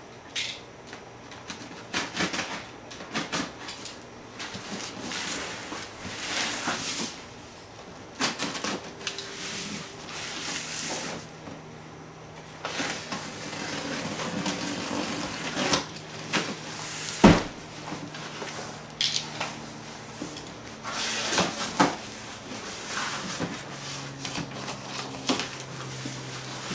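Cardboard shipping box being handled and opened: irregular rustling and scraping of cardboard with scattered clicks and knocks, one sharp knock about seventeen seconds in.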